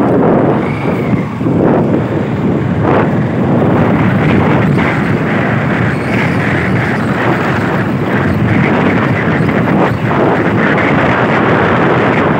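Wind rushing over the microphone of a phone carried on a moving motorbike, a loud, steady roar of noise with road and vehicle sound mixed in.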